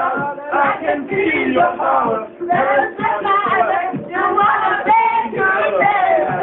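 Male and female voices singing loudly together over music.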